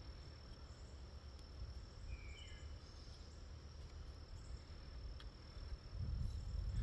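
Crickets trilling as one steady, faint, high continuous tone, with a low rumble underneath and a couple of faint clicks.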